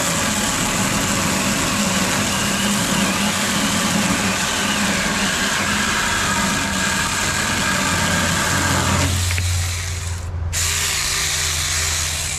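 Saker mini cordless electric chainsaw cutting through a 2x4, a steady loud run for about nine seconds; then the sound changes as the blade breaks through and the saw runs on briefly.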